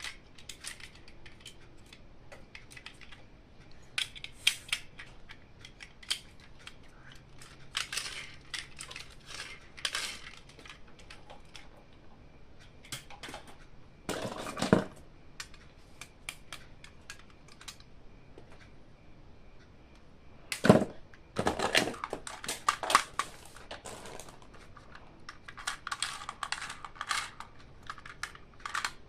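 Toy packaging being handled and unboxed: irregular clicks, taps and crackling of plastic and cardboard, with louder crackling bursts about a third and two-thirds of the way through.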